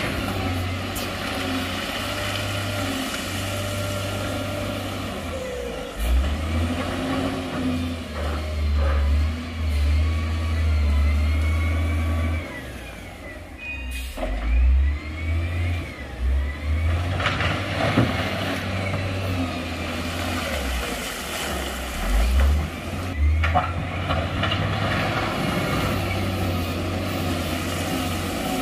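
Heavy diesel engines of dump trucks and a wheel loader working, with a deep constant rumble that surges louder several times as the engines are revved under load.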